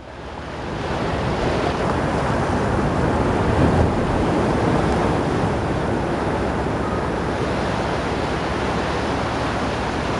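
A steady rushing noise, fading in over about the first two seconds and then holding even.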